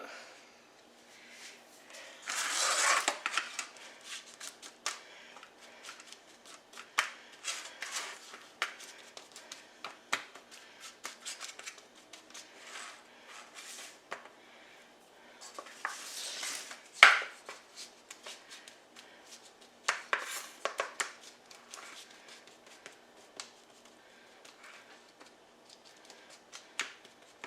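Kitchen utensils scraping and clicking against a bowl and pans while a buttery crumb crust mixture is divided up, with short rustling scrapes and scattered sharp taps. The loudest are a rustle a few seconds in and a sharp click about midway.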